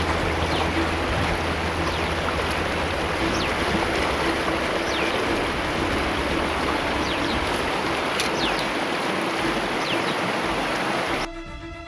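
Steady rush and splashing of water in a shallow channel churned by a dense crowd of fish.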